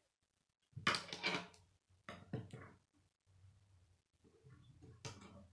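Clattering clicks and knocks of a plastic K'nex model being handled on a wooden tabletop. The loudest cluster comes about a second in, another follows around two and a half seconds, and a single sharp knock comes near the end.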